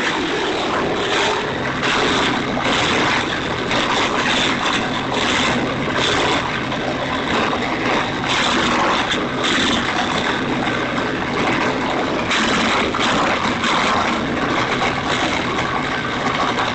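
A small petrol engine running hard under load, with irregular surges in a dense, steady mechanical noise.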